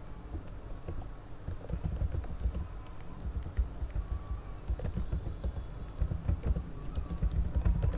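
Typing on a computer keyboard: quick, irregular key clicks over dull low thumps.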